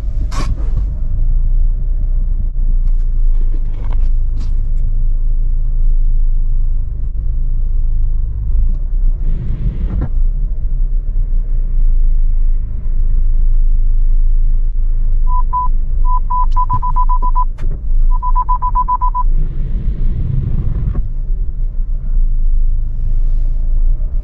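Low, steady rumble inside the cabin of a 2023 Geely ICON SUV moving slowly in reverse. About two-thirds of the way in, the parking sensor beeps at one pitch: a few separate beeps that quicken into rapid runs, the warning that an obstacle is close behind.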